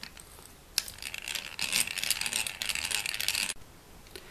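Hand-cranked eggbeater drill turning, a fast clicking rattle as its bit cuts through gasket paper, starting just after a single click and cutting off suddenly about three and a half seconds in.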